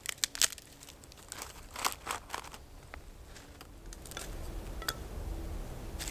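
Dry tinder and split kindling sticks being handled and laid for a fire, with several sharp wooden clicks and crinkles in the first half. A low rumble comes in from about four seconds in.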